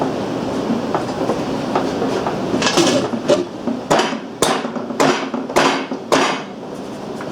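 A few light metal clinks, then five sharp, ringing metal-on-metal strikes about half a second apart. Tools are being worked against a seized spark plug in an old Briggs & Stratton Model Q engine, and the plug is not coming loose.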